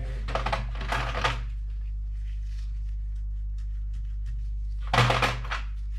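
Small pliers working metal tabs on an instrument cluster: bursts of clicking, scraping handling noise around the first second and again near the end, over a steady low electrical hum.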